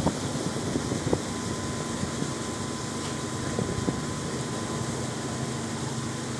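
Passenger boat's engine running steadily under way, a low hum with a thin steady whine above it and a few light knocks.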